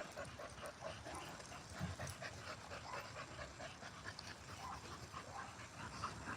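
A dog panting faintly in a quick, steady rhythm.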